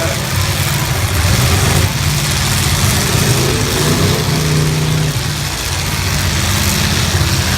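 Engines of full-size cars running, with one revving up and down about three seconds in over the steady din of the others.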